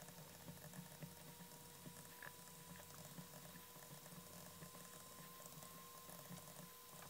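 Near silence: a stylus writing on a tablet screen, with faint light ticking and scratching over a faint steady tone.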